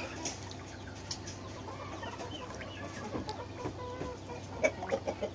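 Domestic chickens clucking, scattered short calls, with a few louder ones near the end.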